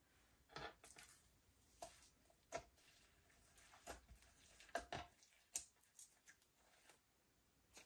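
Slime being worked by hand: faint, scattered sticky squishes and clicks, irregular and a second or so apart.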